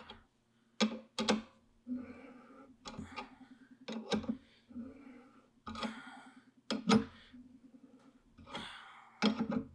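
Hand reamer being turned under pressure through a bronze kingpin bushing in an early Ford spindle, cutting with a series of short, pitched, buzzing chatter strokes, with several sharp clicks between them.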